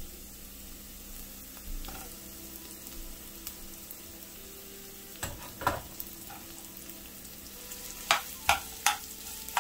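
A slotted steel spoon stirring and scraping mashed potato into an onion-and-cashew masala in a metal pan, over a low sizzle of frying. A few sharp clicks of the spoon against the pan, three of them in quick succession near the end.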